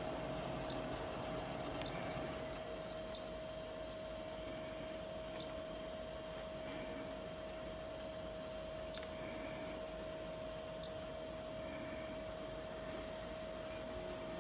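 Short high beeps from the Viessmann Vitodens 200 boiler's touchscreen control panel as it is tapped through its menus, six in all at uneven intervals, over a steady hum.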